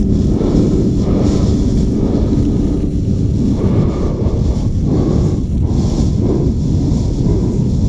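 Strong wind buffeting an action camera's microphone at skiing speed, with the skis hissing and scraping over groomed snow; the scraping swells every second or two as the skis carve through turns.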